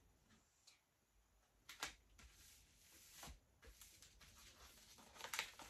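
Near silence: room tone with a few faint clicks and rustles of things being handled on a desk, the clearest just under two seconds in.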